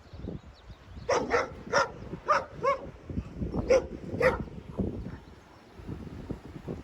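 A dog barking: about seven short, fairly high barks, five in quick succession and then two more. Wind is rumbling on the microphone underneath.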